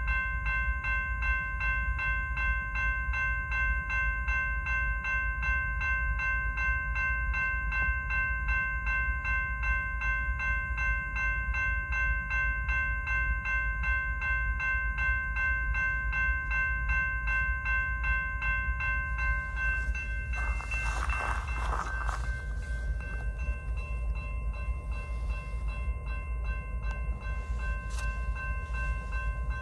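Railroad grade-crossing warning bell ringing in rapid, evenly repeated dings over a steady low rumble from the freight train. The bell fades out about two-thirds of the way through, and a brief loud rushing noise follows.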